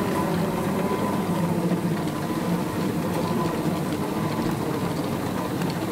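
Airport moving walkway running: a steady mechanical hum with a faint, thin high whine.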